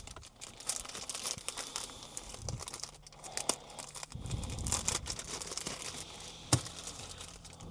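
A small package being opened by hand: crinkling and tearing of the wrapping, with light clicks and one sharp tap near the end.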